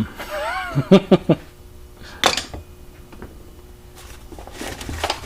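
A brief wordless vocal sound in the first second or so, then tools being handled and rummaged through: a sharp clatter about two seconds in and rustling near the end.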